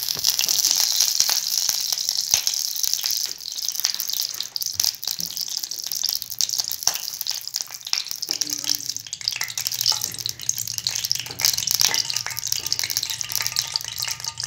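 Dalda vegetable ghee heating in a steel bowl on a stove, sizzling and crackling as it melts. A low steady hum comes in about eight seconds in.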